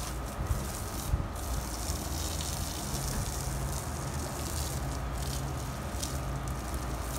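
Garden hose spraying water onto a person, a steady hiss and crackling patter of water, with a low rumble of wind on the microphone underneath.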